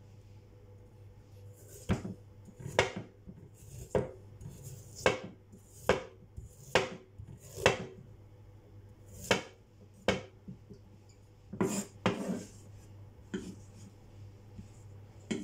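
Wide-bladed kitchen knife chopping fresh ginger on a wooden cutting board: about a dozen separate chops, roughly one a second, starting about two seconds in.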